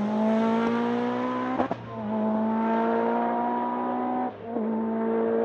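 Lancia Delta S4 Group B rally car's twincharged (turbo plus supercharger) four-cylinder engine accelerating hard, its note climbing in pitch through each gear. It dips briefly at two upshifts, the first with a sharp pop, and then pulls on.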